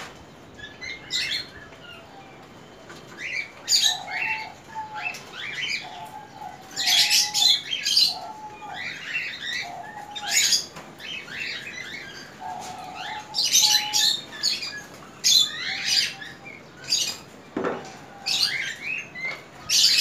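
Many caged small parrots chirping, a dense stream of quick high chirps with a few short, lower, steadier notes mixed in. A brief knock comes near the end.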